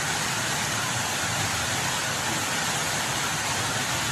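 Heavy rain pouring onto a flooded street: a steady, even hiss of rain and running floodwater.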